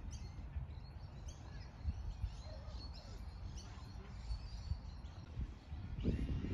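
Small birds chirping in short, repeated calls over a steady low outdoor rumble. Near the end a louder noise rises, with a faint steady whine, as a radio-controlled model airplane flies past.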